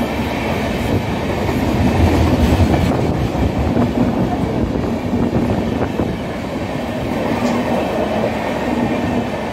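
Coaches of an express passenger train rushing through a station at speed: a continuous loud rumble and rattle of steel wheels on the rails, swelling about two seconds in.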